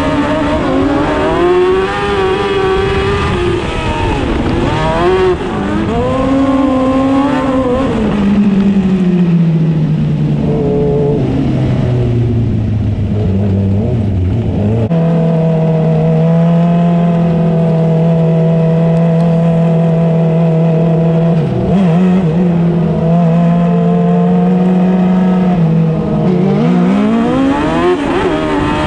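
Dwarf race car's motorcycle engine heard from the cockpit. It rises and falls with the throttle through the first few seconds, then winds down to a lower, steady pace held for about ten seconds, and revs up again near the end.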